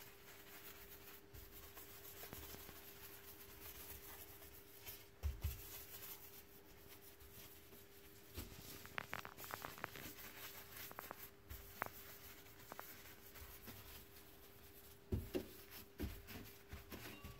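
Paper towel rubbing a white cream cleaner over a glass-ceramic cooktop surface, faint, with a few light clicks and knocks. A steady faint hum runs underneath.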